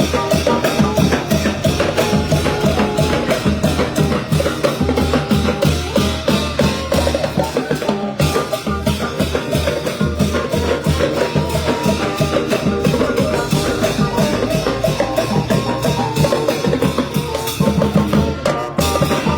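Thai brass band (trae wong) playing a lively procession tune: brass melody over a steady, driving drum beat.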